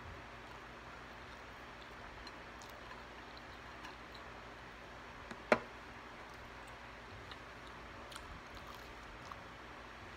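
Quiet eating of a burrito and fries: soft chewing and a few small ticks over a faint steady hiss, with one sharp click about halfway through.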